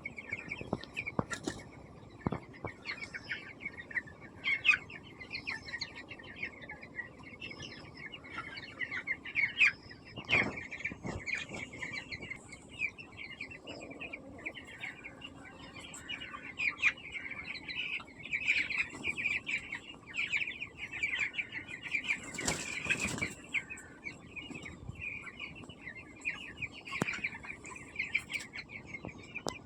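A flock of young chickens in a poultry shed, peeping constantly in a dense, high chorus. Now and then there is a brief, broader flutter or knock.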